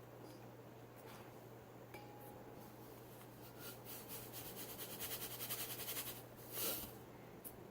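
Thick shampoo-and-salt slime mixture being stirred in a container, the utensil ticking and scraping rapidly for a couple of seconds, followed by a short rushing noise; the mixture is thickening as salt is worked in.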